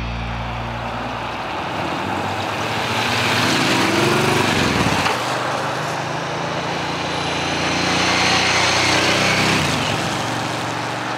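Motorcycles riding past on a wet road: engines running with a tyre hiss, growing louder and then dropping in pitch as each goes by, twice.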